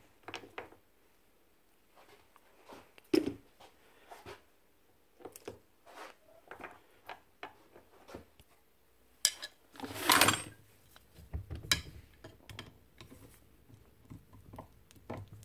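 Scattered metallic clicks, clinks and knocks of small metal parts and hand tools being handled on a workbench during a miter saw bearing change, with a louder clatter about ten seconds in.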